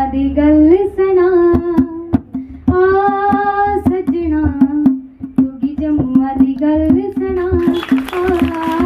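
A female voice singing a Dogri folk song over a steady low drone, with frequent sharp percussive taps. Near the end a hissy, noisy layer rises under the singing.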